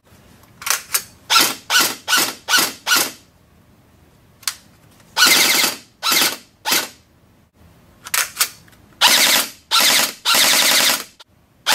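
G&G GR4 G26 airsoft electric blowback rifle firing: a quick run of single shots, then a short burst of rapid fire, a few more single shots, and two longer full-auto bursts near the end.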